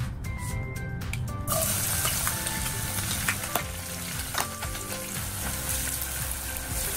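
Chopped red onions hitting hot oil in a saucepan: a sizzle starts suddenly about one and a half seconds in and carries on steadily as they fry. A few light clicks come as they are stirred with a spoon.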